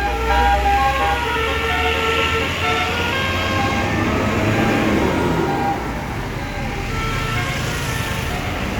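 Bus 'telolet' basuri multi-tone horn playing a quick tune of short stepped notes over the low rumble of the bus's engine. The tune stops about three seconds in, leaving engine and road noise, and a few more horn notes sound near the end.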